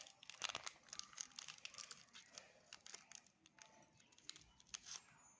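Faint crinkling of cough-drop packaging being handled: a quick run of crackles at first, then scattered crinkles.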